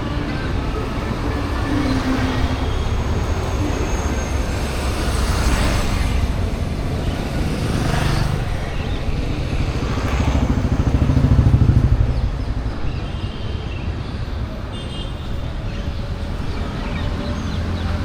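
Street traffic: motor vehicles running past in a steady low rumble, growing loudest as one passes close about ten to twelve seconds in.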